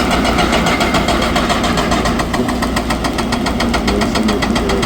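Hydraulic rock breaker on a JCB 220 excavator hammering stone in rapid, evenly spaced blows, with the excavator's diesel engine running underneath.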